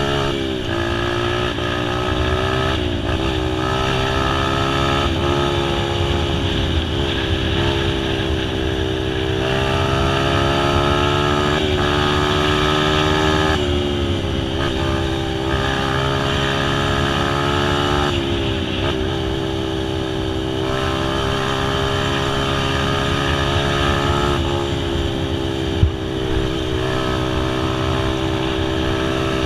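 A small vehicle's engine running steadily under way, its pitch rising and falling slightly, with one sharp knock near the end.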